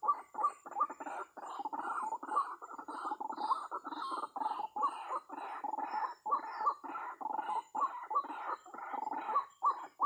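White-breasted waterhen (ruak-ruak) calling: a fast, unbroken series of short notes, about three a second.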